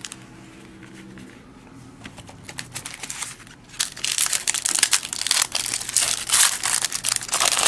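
Basketball trading-card pack's wrapper crinkling and tearing as it is opened, in a dense crackly run from about four seconds in.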